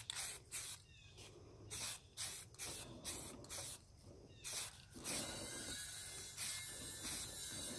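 Aerosol can of spray primer paint spraying in a quick series of short bursts, then a longer, more continuous spray from about five seconds in.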